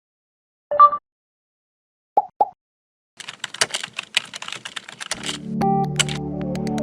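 Sound effects: a short beep, two quick blips, then a run of rapid keyboard-typing clicks. Synthesizer music with a wavering melody comes in about five seconds in.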